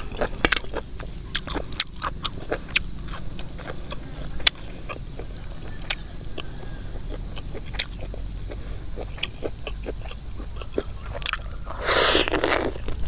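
Close-miked eating sounds: wet chewing with scattered sharp clicks as puffball mushrooms and greens are chewed. About 12 s in, one loud slurp as a bunch of sweet-leaf greens is sucked into the mouth.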